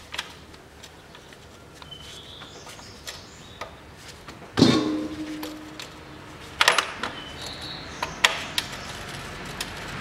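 A ratchet wrench working the car's 21 mm oil pan drain plug loose. About halfway through there is one sharp metallic clack with a brief ringing tone, and a few lighter clicks follow.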